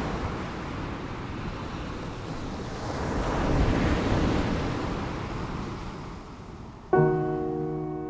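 Ocean surf washing onto a beach, swelling to a peak midway and then easing off. About seven seconds in, music begins with a single struck chord that rings on.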